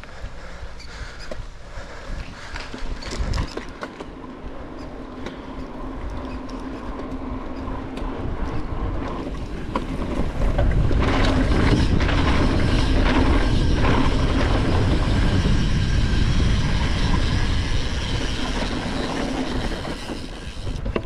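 Riding noise from a mountain bike at speed: wind rushing over an action camera's microphone with the tyres rumbling over the path and grass. It builds and then gets much louder about ten seconds in, with a few clicks and knocks early on.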